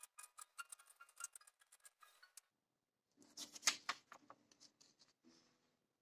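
Permanent marker squeaking and scratching across paper as letters are written, stopping after about two and a half seconds. Then a sheet of paper rustles as it is picked up and handled, loudest just over half a second into the rustling.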